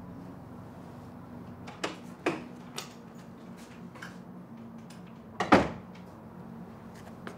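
Door sounds: a few short clicks and knocks, then a louder thud about five and a half seconds in, over a steady low hum.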